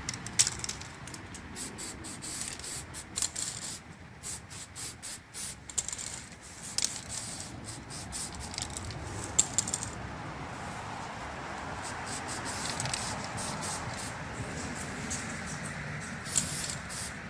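Aerosol can of extreme-pressure dry film moly lubricant spraying in a run of short hissing bursts, stopping and starting, as a first coat goes on.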